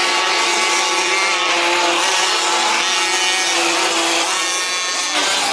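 Several 1/5-scale petrol RC off-road trucks racing, their small two-stroke engines buzzing together at high revs in a dense, steady drone.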